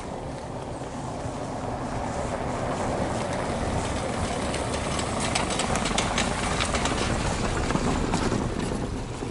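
An SUV driving past on a cobblestone road, its tyres rumbling and clattering over the stones with the engine underneath. The sound swells as it approaches, is loudest with a run of sharp ticks in the middle, then fades as it goes by.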